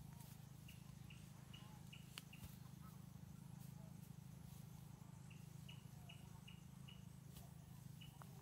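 Faint high chirps from a small forest creature, in runs of four or five at about three a second, over a steady low hum.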